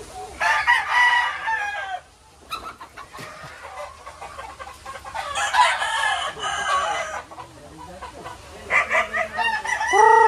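Roosters crowing: three long crows, about half a second in, in the middle, and near the end.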